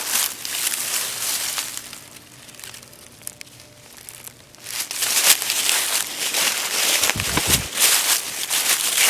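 Footsteps crunching and rustling through dry leaves and brush, with a quieter pause in the middle.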